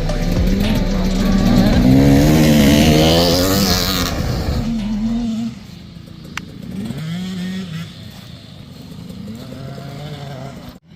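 Two-stroke 85cc dirt bike engine revving up and down as the bike rides, loud for the first five seconds, then dropping off suddenly to a fainter engine that keeps rising and falling.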